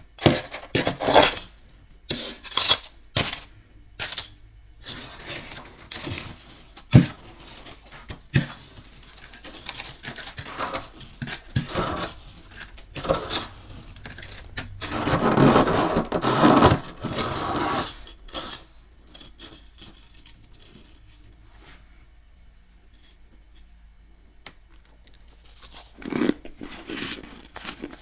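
Metal spoon scraping and gouging thick frost off a freezer wall, crunchy scrapes in irregular strokes. A longer, louder stretch of continuous scraping comes past the middle, then a lull before a few more strokes near the end.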